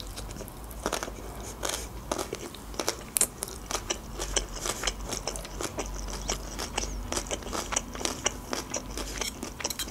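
Close-up chewing of a mouthful of shredded red cabbage salad: irregular crisp crunches and wet mouth clicks several times a second.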